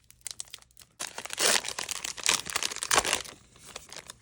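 Foil Pokémon booster pack wrapper being torn open and crinkled by hand: a few light clicks, then about two seconds of loud crackling, tearing foil that dies down to soft rustles near the end.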